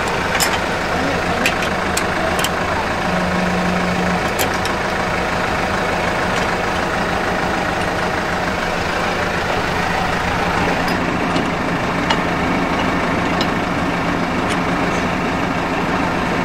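Tractor engine idling steadily, with scattered short clicks and clinks from hand work on the seed drill hitched behind it.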